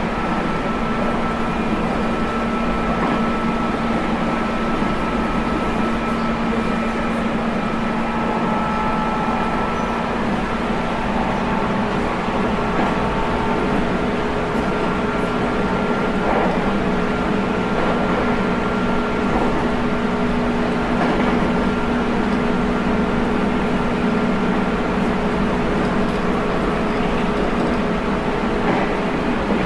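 JR Kyushu 811 series electric train running at a steady speed, a continuous rolling rumble with several steady humming tones over it.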